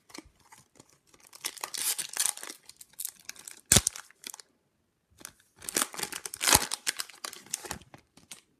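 Foil wrapper of an Upper Deck hockey card pack being torn open and crinkled, in two spells of tearing and crumpling with a sharp click about midway between them.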